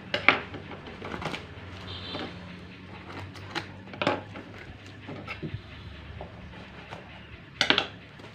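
A parcel's wrapping being cut and torn open with a knife: a string of short, sharp rips and rustles, the strongest just after the start and near the end.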